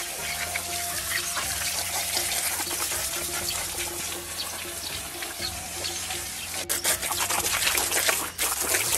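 Water from a hose spraying onto a hanging whole sheep carcass to rinse it: a steady hiss of spray spattering on the meat, more irregular in the last couple of seconds.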